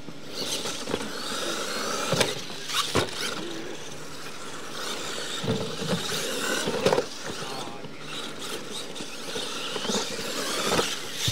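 Radio-controlled monster trucks racing on dirt, their electric motors whining up and down in pitch as the throttle comes on and off. Sharp knocks from landings off the jumps come several times.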